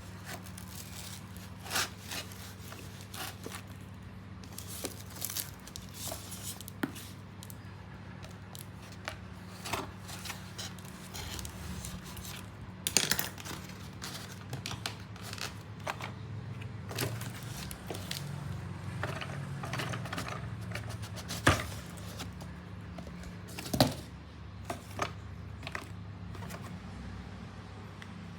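Hands unpacking an old radio: irregular clicks, scrapes and rustles of packaging and handling, with a few sharper knocks, over a steady low hum.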